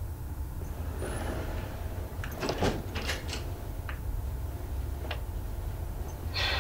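A steady low hum with a few scattered soft knocks and clicks, the clearest cluster about two and a half seconds in, then a brief rustling burst near the end.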